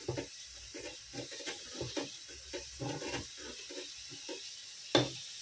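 Plastic slotted spoon stirring a thick spice paste with yogurt as it fries in a non-stick pot: irregular wet squelching scrapes a few times a second over a faint sizzle, with one sharp knock about five seconds in.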